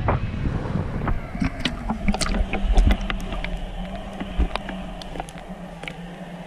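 Waterproof action camera dipping into shallow sea water: muffled sloshing at first, then many sharp underwater ticks and clicks over a steady low hum, growing quieter toward the end.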